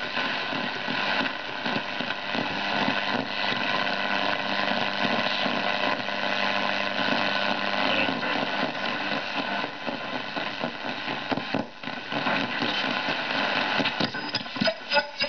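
A 1952 Kapsch Superior tube radio hissing with shortwave static and interference between stations: a steady rushing noise with faint steady tones running through it. About a second before the end, crackles and a high whistle break in as the tuning moves toward a station.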